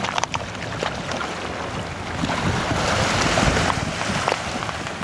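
Shallow seawater splashing and lapping around wading legs and a plastic sit-on-top kayak at a rocky shoreline, with small waves washing over the rocks. The wash swells louder a little after halfway through. Wind rumbles on the microphone throughout.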